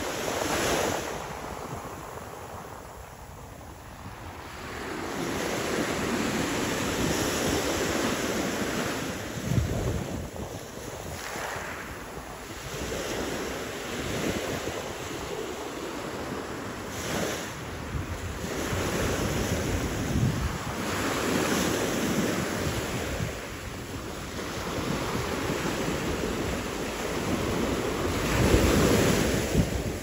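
Small ocean waves breaking and washing up the shore, the surf swelling and fading every few seconds. Wind gusts on the microphone add low rumbles, the strongest near the end.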